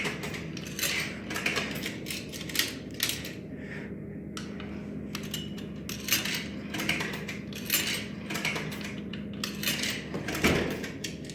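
Coins being fed one after another into a vending machine's coin slot, each clinking and rattling down through the coin mechanism, a dozen or more times, under a steady low hum.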